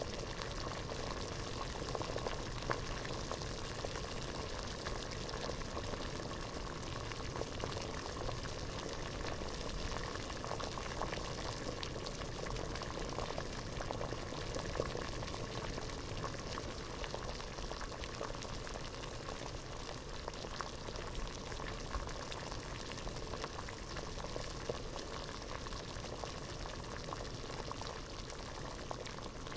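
Pot of water at a rolling boil: a steady dense bubbling with many small pops and gurgles.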